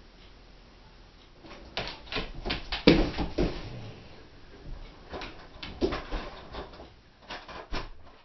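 A Doberman moving about right beside the camera: a scattered series of knocks and scuffs, the loudest about three seconds in.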